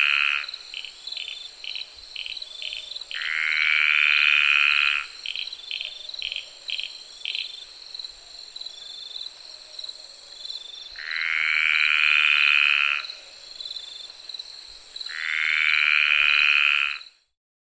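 Frogs calling at night: a loud drawn-out call of about two seconds, its pitch rising slightly, comes four times, with quick runs of short high chirps between the first pair. Distant insects keep up a steady high drone underneath. The sound cuts off abruptly just before the end.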